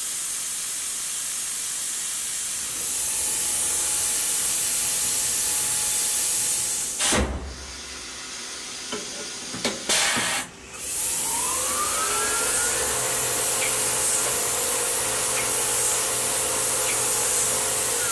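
Tormach CNC mill drilling aluminium, its coolant nozzle hissing steadily over the running spindle. About seven seconds in, the hiss and the spindle stop and a few clicks follow during a hand tool change. The hiss then returns and the spindle spins up with a rising whine before settling to a steady tone.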